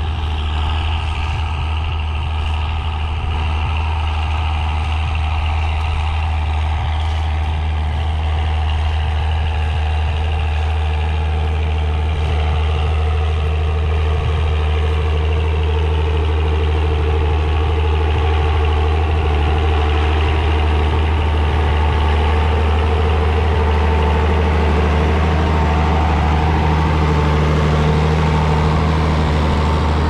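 Farm tractor's diesel engine running steadily under heavy load while pulling a plough through wet, heavy clay soil; it gets a little louder about twelve seconds in.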